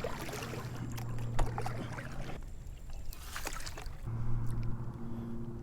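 Small water splashes and knocks around a kayak on the water, with a steady low hum underneath that drops out for a couple of seconds in the middle.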